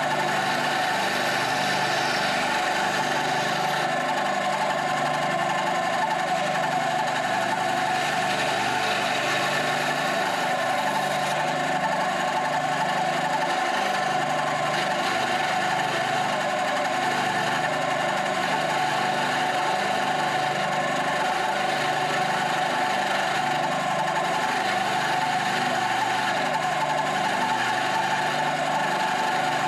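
Bandsaw running steadily while cutting out a piece of African mahogany.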